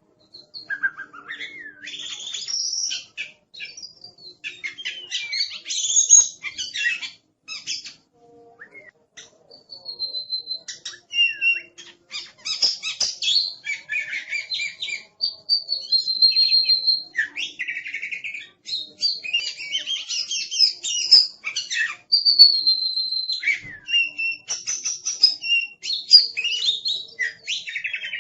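Oriental magpie-robin (kacer) in full, aggressive song: a continuous, varied stream of loud whistles, fast trills, gliding notes and sharp chirps, with brief pauses between phrases and a few long held whistles.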